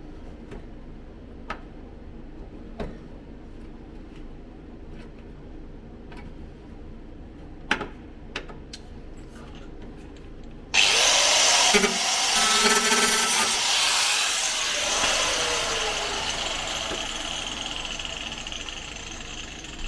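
A few light knocks and taps on sheet metal, then a handheld power tool starts suddenly about ten seconds in. It runs loud with a harsh whirring grind, then slowly winds down with a falling pitch.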